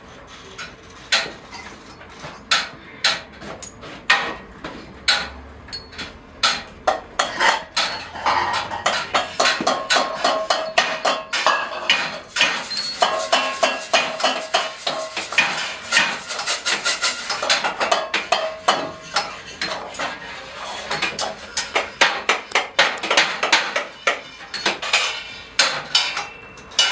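Dense, irregular clatter of sharp knocks and clicks, several a second, with faint ringing tones among them.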